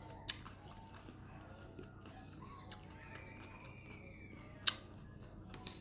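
Crisp lettuce and herb leaves snapping and crackling as they are picked and folded by hand, with three short sharp clicks, the loudest about three-quarters of the way in.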